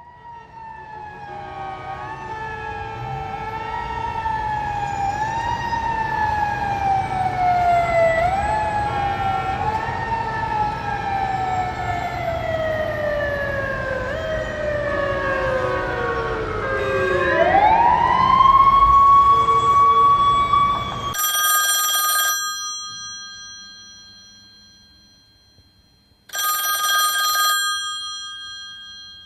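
A whistling, siren-like tone slides downward for about seventeen seconds in small repeated hops, then swoops back up and holds. After it, a bell rings twice, about a second each time, and its tone hangs on after each ring.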